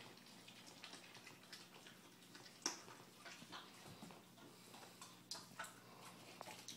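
Faint, scattered wet clicks and ticks of a dog mouthing and chewing a raw chicken leg and of its claws on a hardwood floor, with one sharper click about two and a half seconds in, over a faint low hum.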